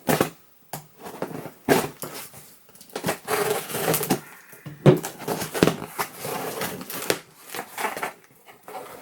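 A mailed package being opened by hand: packaging tearing and crinkling, with scattered clicks and knocks as it is handled.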